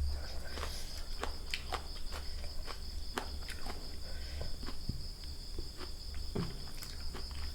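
Close-up eating sounds: irregular sharp clicks and crunches of chewing. They sit over a steady high-pitched drone of insects.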